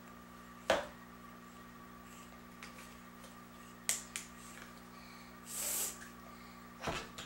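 A few sharp clicks and knocks of plastic Play-Doh tubs being handled on a tabletop, the loudest about a second in, and a brief rustle near the end.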